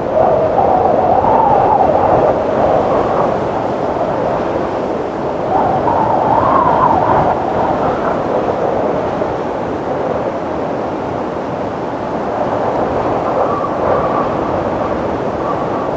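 Howling wind: a rushing noise whose pitch wavers up and down, swelling in two strong gusts, with a faint thin whistle near the end.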